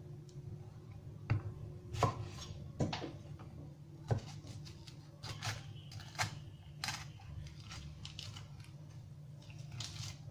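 Chef's knife slicing long green peppers on a wooden cutting board: irregular knocks of the blade meeting the board, over a steady low hum.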